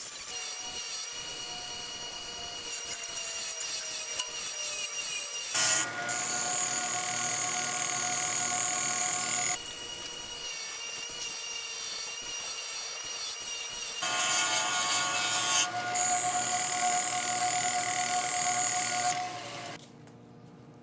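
A power tool running with a steady whine over a rough rubbing or sanding noise, switching abruptly between a quieter and a louder pitch of work every few seconds, as when parts of an antique coffee grinder are abraded or cleaned.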